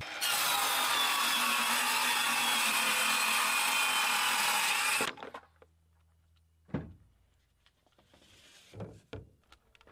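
Circular saw running and cutting through a siding panel in one steady pass of about five seconds, with a high blade whine; it starts suddenly and stops abruptly. A few light knocks follow.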